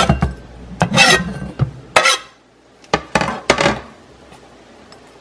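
Chef's knife blade scraping minced garlic off a plastic cutting board into a glass bowl, with clinks against the bowl: several short scrapes and taps, then quiet for the last second or so.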